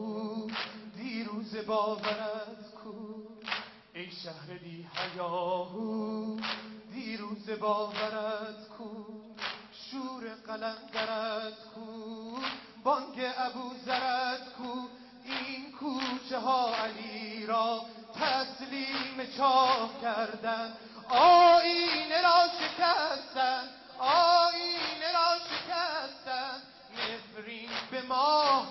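Large crowd of male mourners chanting a noha (mourning lament) in unison, with the sharp, regular slaps of collective chest-beating (sineh-zani) under the voices. The chanting grows louder about three-quarters of the way through.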